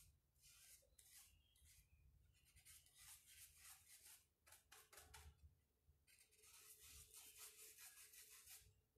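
Faint, scratchy strokes of a paintbrush working paint onto the rough wooden top of a cable spool, coming in quick runs with short pauses between them.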